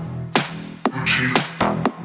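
Electronic dance music with a steady, punchy beat of sharp hits about twice a second over a sustained bass line.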